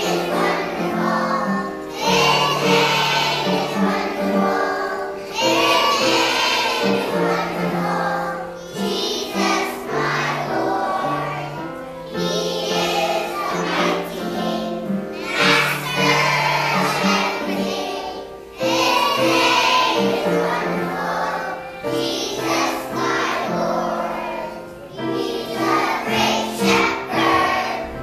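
A group of young children singing a song together in unison, with musical accompaniment.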